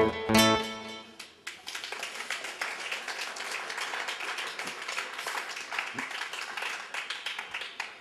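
Acoustic guitar ending the song during the first second, then audience applause from about a second and a half in, fading out near the end.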